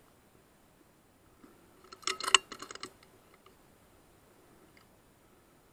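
Air rifle's cocking lever cycled to chamber the next pellet: a quick run of sharp mechanical clicks about two seconds in, lasting under a second, then a few faint ticks.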